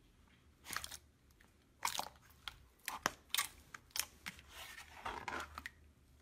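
Hand pressing into and pulling apart clear, watery slime in a plastic tub: irregular wet crackles and pops, with a longer crackling stretch near the end.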